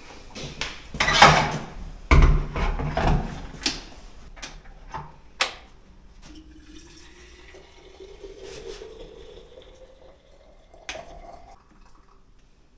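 Water poured from a plastic jug into a glass kettle, the pitch of the pour rising steadily for about five seconds as the kettle fills. Before the pour, a few knocks and clicks as the jug and kettle are handled.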